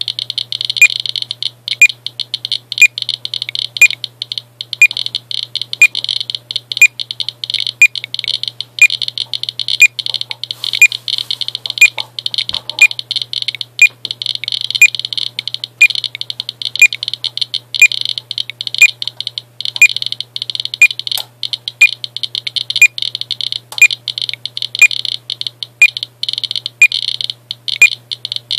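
An S.E. International Inspector USB Geiger counter's high-pitched alarm sounds continuously with a fast flutter, set off by the count rate from uranium glass. Sharp radiation-count clicks run over it, with a louder click about once a second.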